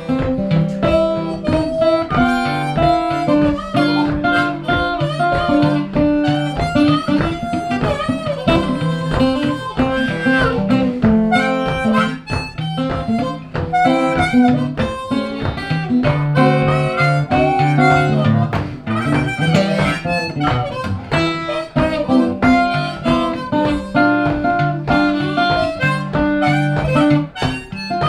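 Blues harmonica playing an instrumental solo over acoustic guitar accompaniment, with a bass line of picked notes underneath.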